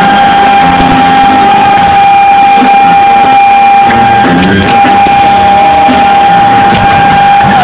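Live rock band playing, with an electric guitar holding one long sustained lead note over the band's accompaniment; the note bends down and stops near the end.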